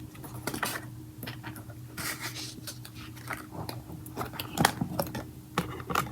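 Packaging and kit items handled close to the microphone: irregular small taps, clicks and rustling crackles, over a faint steady hum.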